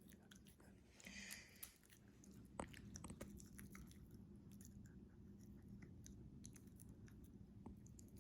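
Small dog chewing cucumber: faint, scattered crunching clicks.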